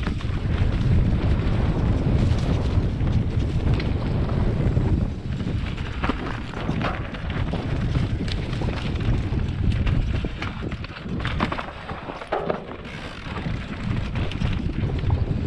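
Mountain bike descending a dry, stony trail: wind rumbling on the camera's microphone, tyres rolling over dead leaves and loose stones, and the bike clattering in short knocks over the bumps.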